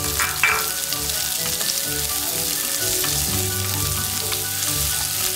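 Chopped red onions frying in hot oil in a stainless steel pan, with a steady sizzle and a short clatter about half a second in.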